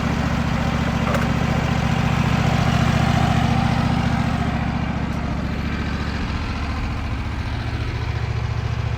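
Wood-Mizer LT15WIDE sawmill's gas engine running steadily at idle while the band blade sits jammed in the log after diving. About six seconds in the engine drops to a lower speed.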